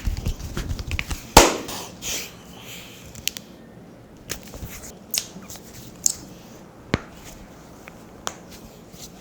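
Cracking massage: quick tapping strokes trail off in the first second, then one loud crack about a second and a half in, followed by a handful of smaller sharp pops spaced about a second apart as joints and skin are cracked.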